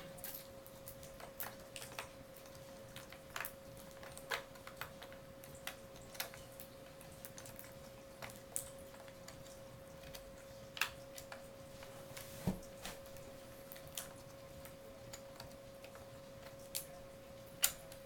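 Scattered light clicks and taps of gloved fingers handling a laptop's plastic memory-compartment cover and its screw, irregularly spaced, over a faint steady hum.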